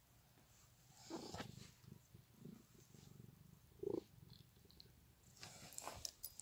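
Domestic cat purring softly, a faint low rumble, with a few light clicks near the end.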